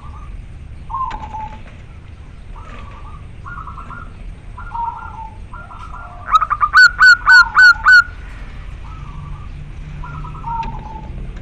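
Zebra dove (perkutut) calling: a male's cooing call to a female, repeated short cooing and trilled notes throughout, with a much louder run of about six sharp, clipped notes close by between about six and eight seconds in.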